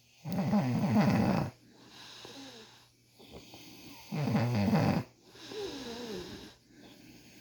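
Man snoring loudly: two snores about a second long, one just after the start and one about four seconds in, each followed by a quieter breath out.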